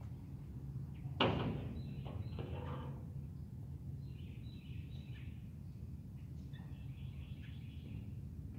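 Outdoor ambience: a steady low rumble with faint bird chirps coming and going. There is one sharp knock a little over a second in that rings briefly.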